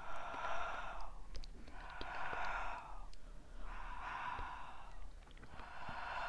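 Close-miked breathing: four long, airy breaths, one about every two seconds, with faint clicks in between.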